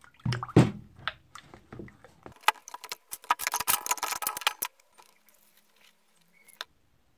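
A cast-iron meat grinder body is set down into a plastic tub of acid cleaner, with a couple of heavy knocks and sloshing in the first second. Then small rusty steel parts go in after it, clinking against each other and the tub and splashing for about two seconds before it goes quiet.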